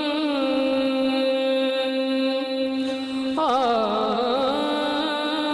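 A man singing a naat, a devotional Islamic poem, into a microphone. He holds one long note for about three seconds, then breaks into ornamented runs of quickly shifting pitch.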